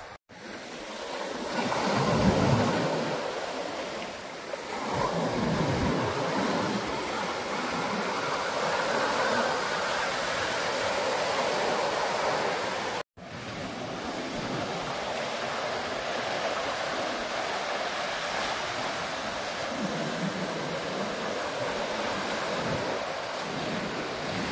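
Mediterranean surf breaking and washing up a beach in swelling waves, with wind gusting on the microphone. The sound cuts out for an instant twice, at edits between shots.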